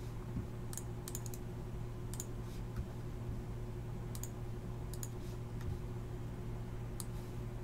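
Short sharp clicks at a computer, scattered about a second apart with some in quick pairs, over a steady low hum: the clicks of randomizing a list several times over.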